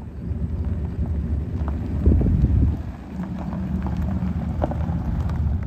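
2008 Chevrolet Impala LS rolling slowly over gravel, its tyres crunching and crackling on the loose stones, with many small ticks of stones popping under the tread.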